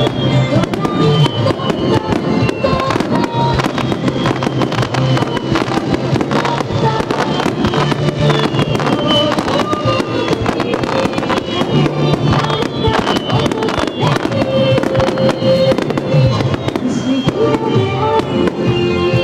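A starmine fireworks barrage: a dense, continuous run of bangs and crackling bursts, heard over music.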